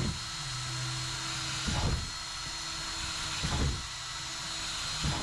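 Cordless drill boring holes through the plastic wall of a garbage can, the motor running in three spells of about a second and a half with a brief louder burst between spells. These are the pairs of holes drilled on each side of a crack so it can be stitched shut with zip ties.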